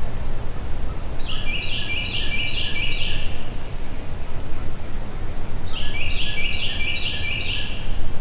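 A songbird singing two bursts of a quick repeated phrase, about five notes each, every note dropping in pitch, over a steady low rumble.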